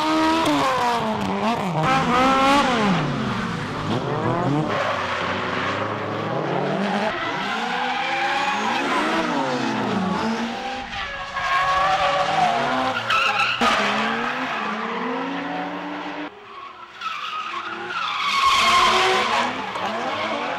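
Drift cars sliding through corners: engines revving up and down hard with tyre squeal and skidding.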